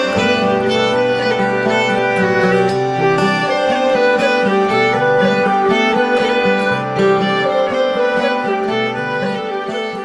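Instrumental background music with a melody over a steady accompaniment, beginning to fade out near the end.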